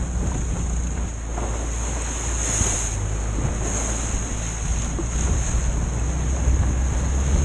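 Outboard motor running steadily at speed on a small open boat, with water rushing past the hull and wind buffeting the microphone.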